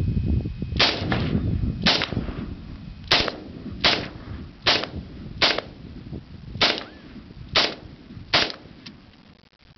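AK-type rifle fired semi-automatically: nine single shots, about one a second, each with a brief echo.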